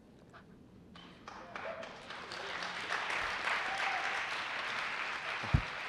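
Audience applause that builds over the first two seconds and then carries on steadily, with a short low thump near the end.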